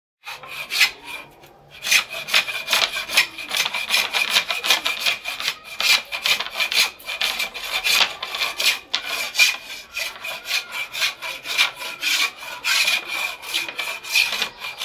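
Wooden board being sanded by hand with sandpaper: quick back-and-forth rasping strokes, about three a second, with a brief pause soon after the start. A faint steady high tone runs underneath.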